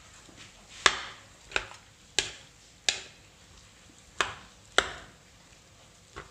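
A perforated metal serving spoon knocking against a metal cooking pot while mixing rice into chicken masala for biryani. About six sharp knocks, unevenly spaced, each with a short ring.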